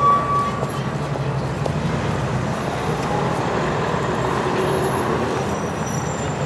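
City street traffic: a steady wash of vehicle engines and tyres with a low engine drone underneath. A high steady squeal fades out within the first second.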